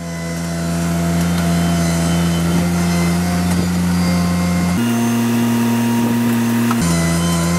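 Mini loader's engine running steadily under hydraulic load while its backhoe attachment digs soil. About five seconds in, the note steps abruptly higher for about two seconds, then drops back.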